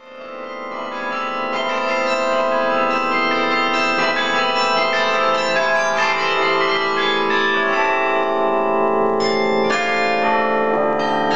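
Carillon of about fifty bronze bells playing, many bells struck in turn and ringing on together in long overlapping tones. The sound fades in over the first second or two.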